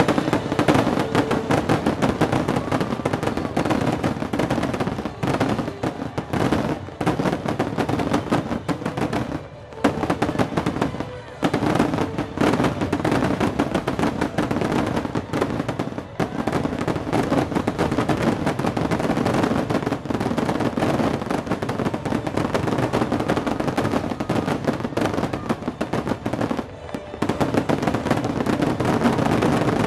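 Aerial fireworks finale barrage: a continuous, rapid run of shell bursts and crackle, with no gaps between reports except a few brief lulls.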